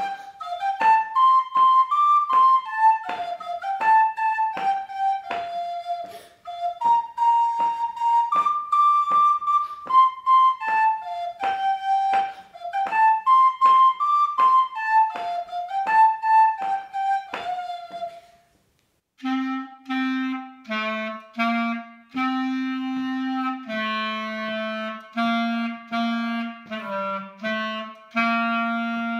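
A child plays a simple tune on a plastic soprano recorder, with each short note tongued separately. After a brief break about 18 seconds in, a clarinet plays held notes in its low register.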